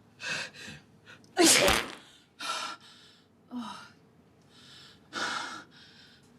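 A woman sneezing once, loudly, about one and a half seconds in, after a couple of quick indrawn breaths. A few softer breathy gasps follow.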